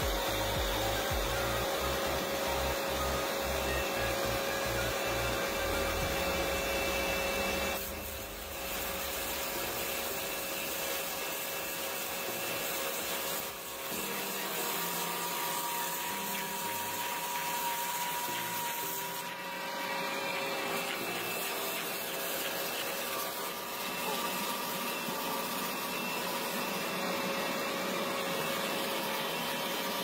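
Tractor-mounted auger stump grinder boring into a tree stump and chewing the wood into chips: a steady mechanical whine over a grinding noise, dipping briefly three times.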